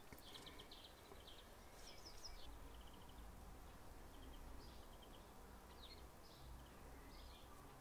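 Near silence: quiet room tone with faint, scattered high chirps of birds in the background.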